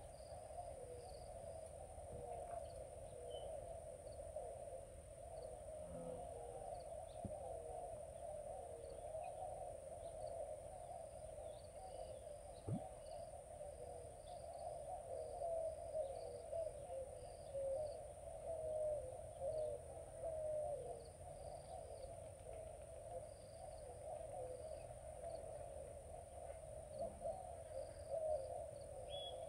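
Faint riverside nature ambience: a steady high insect buzz with scattered short bird or insect chirps, over a continuous wavering hum.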